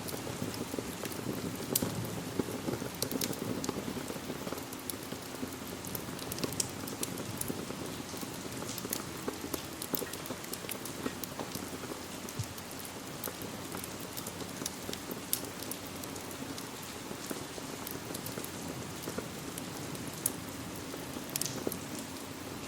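Steady rain with a wood fire crackling, scattered sharp pops over the even hiss.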